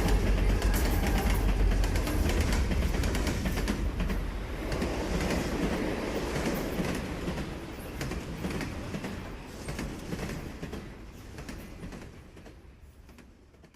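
Train running on rails, heavy low rumble and clatter, fading away steadily over the last several seconds.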